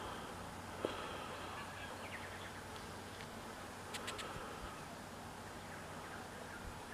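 A honeybee buzzing faintly as it forages among flowers, with a small click about a second in and a few short ticks around four seconds in.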